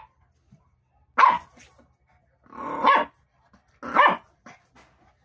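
A young puppy barking three times in short, sharp barks about a second or so apart, while crouched in a play bow.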